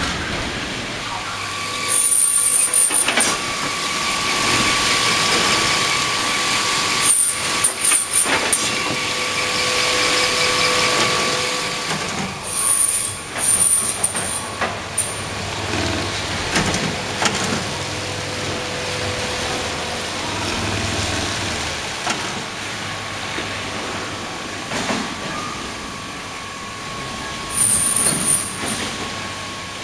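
Flower-processing line machinery running: conveyors, a stem-cutting saw and a bunch-binding machine make a steady mechanical hum and hiss with a faint whine. Short high-pitched squealing hisses break in four times.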